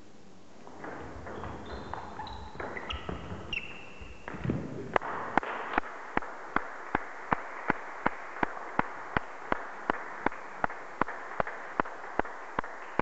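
A table tennis rally with short shoe squeaks on the sports-hall floor and small ball clicks. About five seconds in, steady rhythmic clapping starts at close to three claps a second, over a background murmur, once play has stopped.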